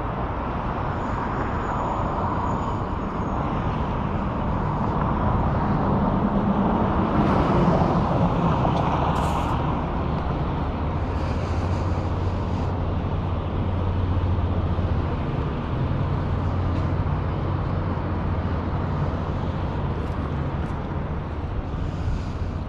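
Street traffic noise with a motor vehicle's engine running, a low steady hum coming in about a third of the way through.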